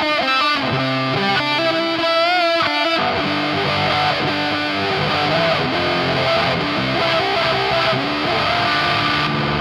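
Electric guitar played through a Dolamo D-2 four-transistor fuzz pedal running on a 7.5-volt supply, the lower voltage emulating a partly drained battery. It plays a sustained fuzz lead with bent, wavering notes for about the first three seconds, then lower notes held longer.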